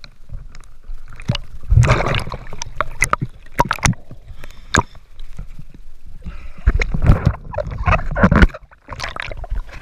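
Water splashing and sloshing around a camera held at the surface of the spring as it goes under and comes back up, with irregular rushes and sharp knocks.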